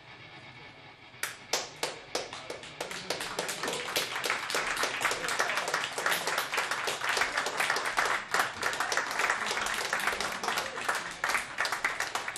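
A small audience clapping by hand. A few scattered claps start about a second in and soon build into steady applause.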